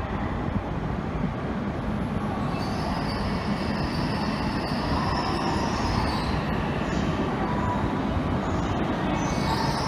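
Tohoku Shinkansen train running at the station platform, a steady rumble with a high whine that comes in about two and a half seconds in, fades around six seconds and returns near the end.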